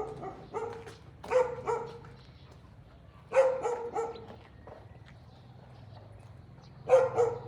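A dog barking in short clusters of two or three barks, a few seconds apart, over a steady low hum.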